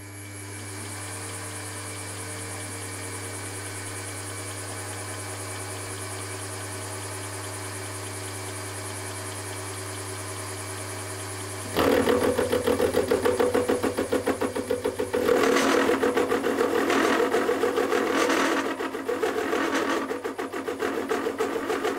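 Milling spindle running a 25 mm end mill with a steady hum; about twelve seconds in, the cutter plunges into a cast iron piston and the sound turns louder and rough, with a rapid rhythmic rattle that grows heavier a few seconds later.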